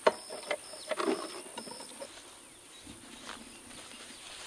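Black plastic frame feeder being handled, giving a few sharp clicks and knocks in the first second or so, then soft rustling. A faint high repeating chirp sounds in the background and stops about two seconds in.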